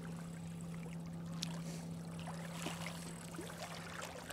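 Small lake waves lapping and splashing at a rocky shoreline, a few light splashes scattered through, over a steady low hum.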